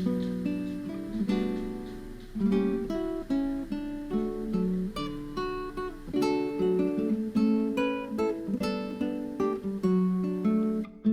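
Background music: acoustic guitar playing plucked, picked notes.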